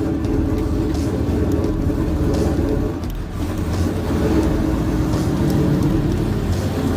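Motor vehicle engine running steadily, with a dense low rumble that dips slightly about three seconds in.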